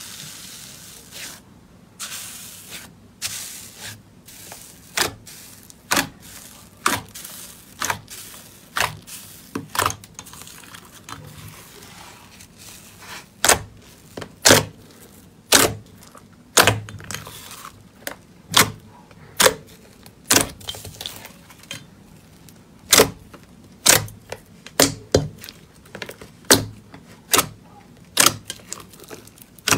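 Slime being pressed and squeezed by hand, making a run of sharp clicking pops about one or two a second, with a soft crinkly hiss for the first few seconds.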